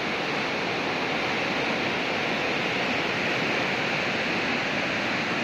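River in full flood: fast, turbulent muddy water rushing with a steady, even noise.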